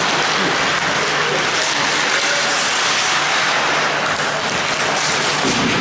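Ice rink ambience during a hockey game: a steady, even hiss with a faint low hum underneath.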